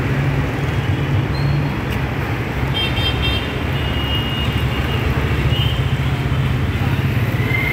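Steady urban traffic rumble of passing and idling road vehicles, with a brief high-pitched horn toot about three seconds in.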